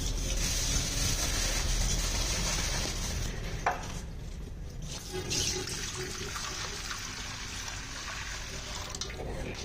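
Water poured from a small vessel into a large, nearly empty aluminium cooking pot, trickling and splashing onto its bottom, with a sharp click about a third of the way through.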